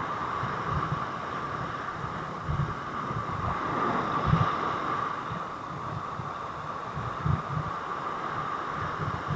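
Strong wind buffeting the microphone in irregular low thuds over the rush of rough surf breaking on the rocks.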